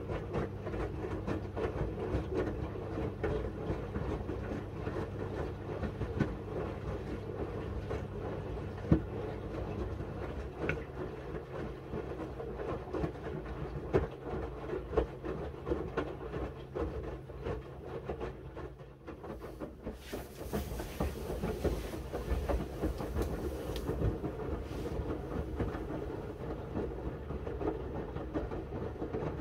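Miele W1 front-loading washing machine running its wash cycle: the drum turns with a steady hum and a dense clatter of laundry tumbling inside it. About two-thirds of the way through there is a hiss lasting some four seconds.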